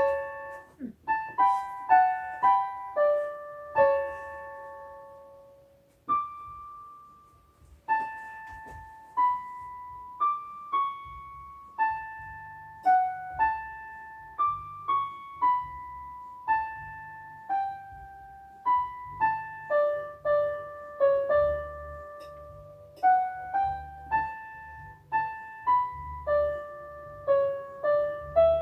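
LP-6210C electronic keyboard played on a piano voice: a slow single-line melody of struck notes that each fade away, with low bass notes joining about twelve seconds in.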